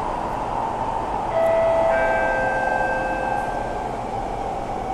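SMRT C651 Siemens train running, heard from inside the carriage as a steady rush, with a two-note chime on the public address system about a second in, ringing on for a couple of seconds: the chime that comes before the next-station announcement.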